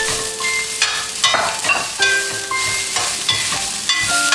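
Rice and vegetables stir-frying in a stainless steel skillet: steady sizzling under repeated scrapes and clinks of a metal spatula tossing the food against the pan.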